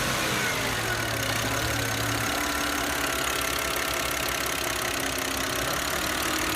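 Audi A6 C6 2.4 V6 engine idling just after a start-up, its revs settling down about two seconds in and then running evenly. The rhythmic ticking knock the engine had before is gone: the two small linkage shafts serving the six cylinders have been bent slightly and refitted.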